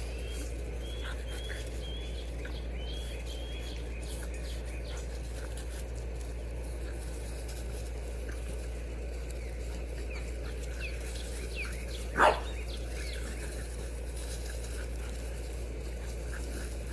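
Small birds chirping faintly over a steady low hum, with a single short, loud animal call about twelve seconds in.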